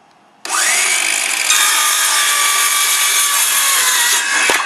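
Handheld circular saw spinning up with a rising whine about half a second in, then cutting through a polypropylene plate lock strip for about three and a half seconds; the motor winds down near the end, followed by a sharp knock.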